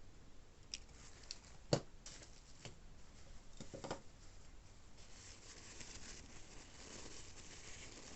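Packaging being handled during an unboxing: a few light clicks and taps, one sharper click about two seconds in and a small cluster near four seconds, then soft rustling.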